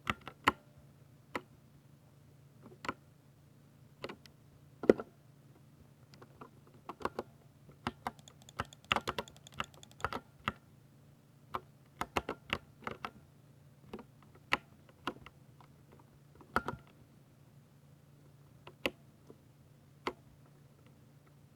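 Typing on a Ducky 60% mechanical keyboard with silver linear switches: separate keystrokes at irregular intervals, with a quick flurry of keys about nine seconds in. A faint steady low hum runs underneath.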